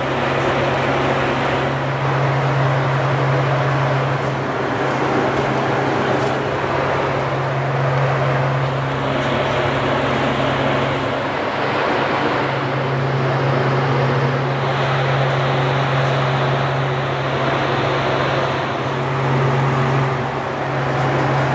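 Large commercial mixer running with a steady motor hum, its paddle churning a thick nougat mixture in the bowl, the sound swelling slightly every few seconds.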